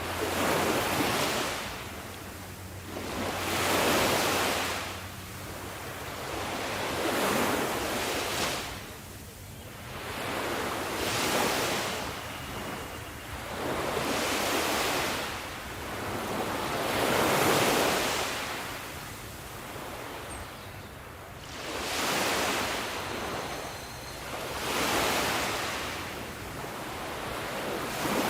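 Sea waves breaking on a shore, one after another: a swell of surf noise rises and falls about every three to four seconds.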